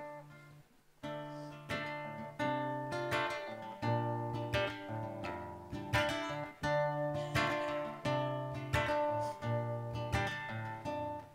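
Acoustic guitar played solo as a song's introduction: a short pause just under a second in, then a steady run of picked and strummed chords, each left to ring.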